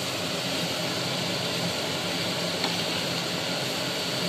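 Kitchen chimney (range-hood) fan running with a steady rushing noise and a low hum, with a faint click of a spatula against the pan about two-thirds through.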